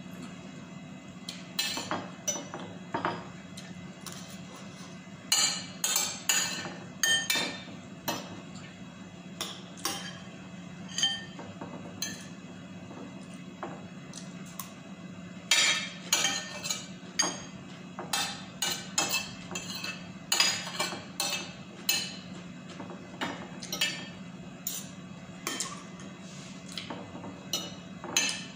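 Metal spoon and fork clinking and scraping against a ceramic plate while eating, in irregular sharp taps, over a steady low hum.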